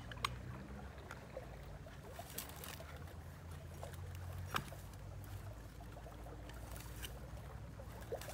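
A faint, steady low rumble with a few soft clicks and crackles from a lit match held to dry twigs and kindling, and one sharper snap about four and a half seconds in.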